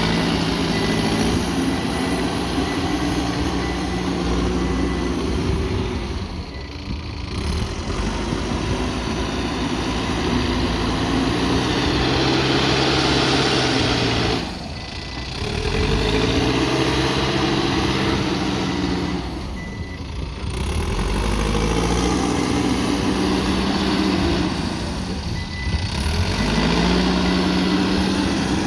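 Diesel engine of a Mahindra backhoe loader working, its note rising and falling again and again as it revs under load and eases off.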